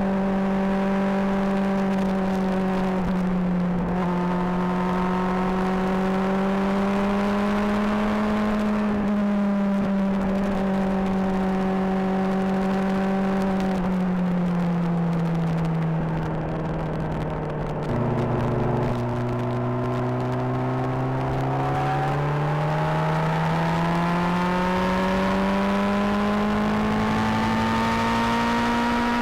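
Honda CBR600RR's inline-four engine picked up close to the exhaust while riding. The engine note holds fairly steady, falls away past the middle as the bike eases off, drops sharply about two-thirds of the way in, then climbs steadily over the last ten seconds as it accelerates.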